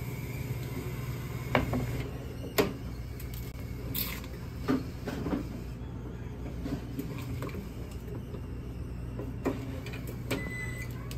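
Automatic cup-sealing machine in use: a series of sharp clicks and knocks as a plastic cup is loaded and the tray is pushed in. A steady low hum runs underneath, and a short high beep sounds near the end.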